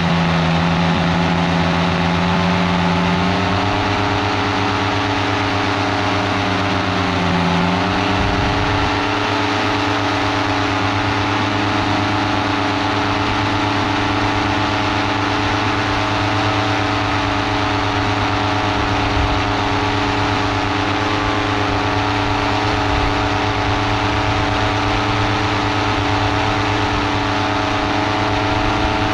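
Paramotor engine and propeller running steadily in flight, with a slight shift in pitch about eight seconds in.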